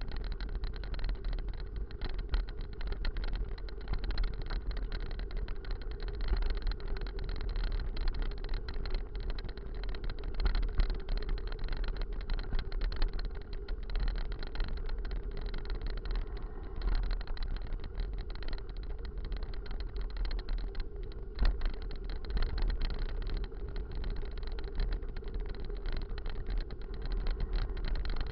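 Full-suspension mountain bike rolling over a rutted dirt road, with wind rumbling steadily on the microphone, the tyres crunching and small rattles from the bike. One sharp knock about twenty-one seconds in.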